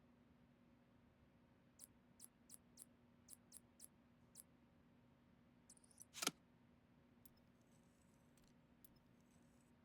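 A string of small, sharp clicks, then one louder click about six seconds in, from parts being handled and fitted while a desktop PC is assembled. Faint rustling follows near the end.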